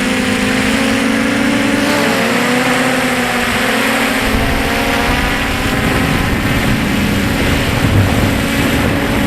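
Quadcopter drone's motors and propellers whining steadily in several tones that shift slightly in pitch. A low rumble joins about four seconds in.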